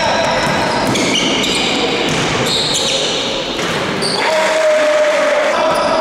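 Basketball being dribbled on a wooden hall floor, with players' voices echoing in the large gym.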